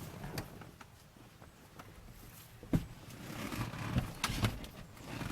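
Scattered clicks and knocks of handling work on a car, with a sharp knock about three seconds in and two more near the end.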